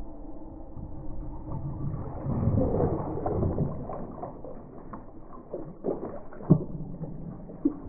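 Water gushing out of a water heater tank's drain fixture, a steady rushing that swells a couple of seconds in. Near the end come two sharp knocks, the first the loudest.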